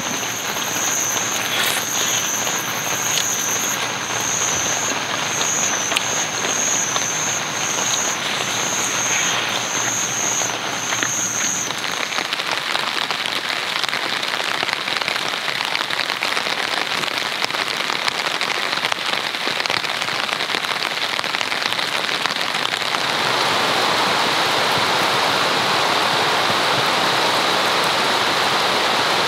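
Steady heavy rainfall. For the first twelve seconds a high-pitched call pulses about once a second over the rain. Near the end the rain grows louder and denser, falling on the fabric of a tent shelter heard from inside.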